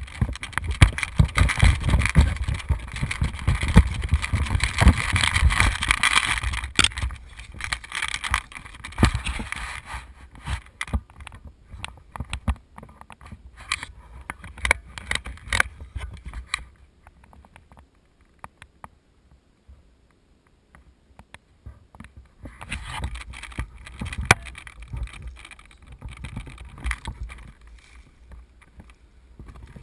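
Vehicle driving over rough ground, a low rumble with many sharp clicks and rattling knocks; it fades and goes quiet for a few seconds past the middle, then the rumble and clicks return.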